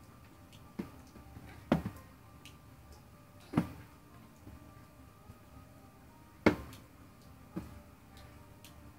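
A baby bumping and slapping hollow cardboard shoe boxes: a handful of sharp knocks at irregular intervals, three of them louder than the rest.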